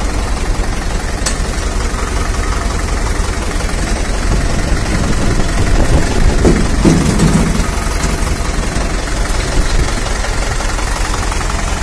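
Standard 460 tractor's diesel engine idling steadily.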